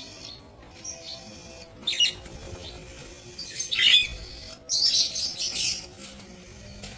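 Budgerigars chirping in loud bursts: a short call about two seconds in, then a longer run of calls from about three and a half to six seconds.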